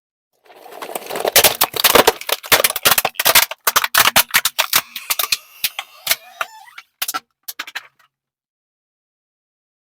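Something brittle being crushed under a car tyre: dense, loud crackling and snapping for about six seconds, thinning to a few last pops, then it stops abruptly.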